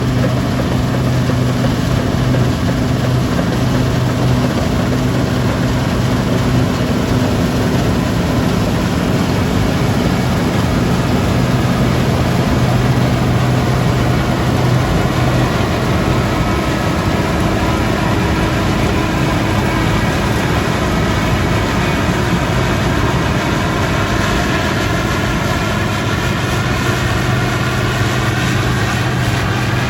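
Heavy diesel farm machinery at work harvesting: a combine harvester and tractors running steadily, with a low engine hum and higher whining tones that drift in pitch during the second half.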